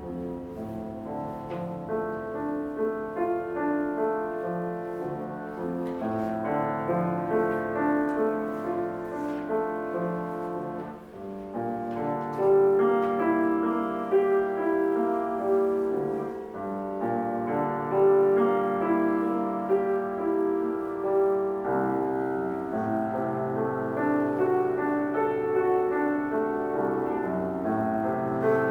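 Solo piano playing a slow, lyrical classical passage: a held melody over flowing broken chords, growing louder about halfway through.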